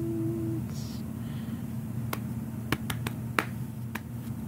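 A held sung note that stops about half a second in, then a pause filled by a low steady hum and, from about two seconds in, sharp clicks roughly every half second.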